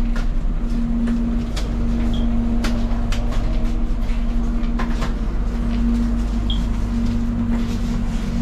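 Running train: a steady low rumble with a constant hum, and a few light clicks and knocks.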